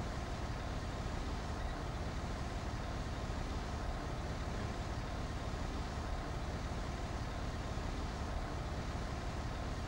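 Bus engine running steadily, a low, even drone heard from inside the bus cabin.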